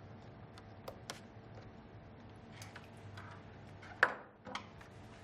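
Light clicks and taps of a screwdriver and hands working on a ventilator's casing while its screws are loosened, with a sharper knock about four seconds in, over a faint steady hum.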